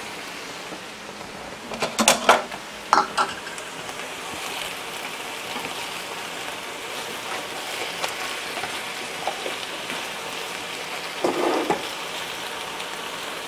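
Eggplant and long beans frying in a skillet, a steady sizzle, with tongs clinking against the pan about two and three seconds in and a brief louder clatter near the end.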